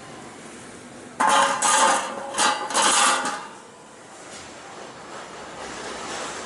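AICHI Multi dora2 automatic dorayaki machine running on test, with a loud mechanical clatter in three close bursts about a second in, lasting about two seconds, over a steady background noise.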